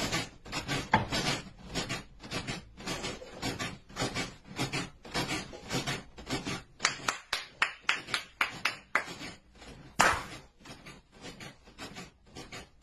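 A bed knocking over and over under someone jumping up and down on it, about three knocks a second and a little faster in the second half, with one louder knock about ten seconds in.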